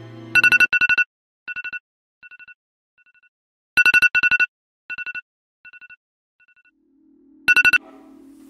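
Mobile phone ringtone: electronic beeps at two pitches, each group a pair of loud quick pulsed beeps followed by fading echoes, recurring three times about every three and a half seconds.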